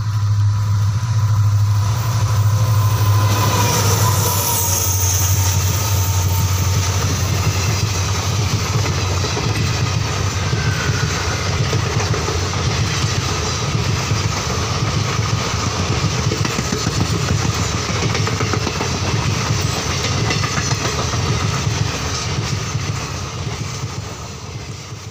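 A vehicle running steadily, with a low hum under a broad noise, fading out near the end.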